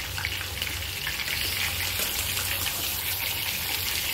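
Carne oreada (salted, air-dried beef) frying in hot oil in a frying pan: a steady sizzle with small crackles running through it.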